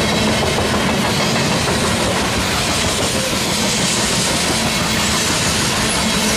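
Covered hopper cars of a freight train rolling past close by: the steady, loud noise of steel wheels running over the rails.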